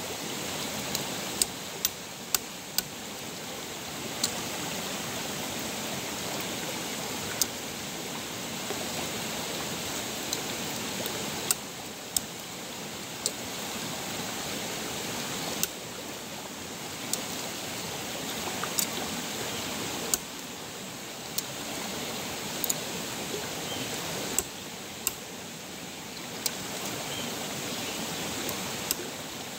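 Steady rushing of a mountain stream, with scattered sharp clicks and taps at irregular intervals.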